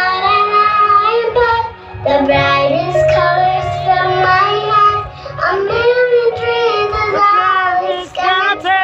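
Background music: a song with a high singing voice holding and bending melodic lines over sustained bass notes.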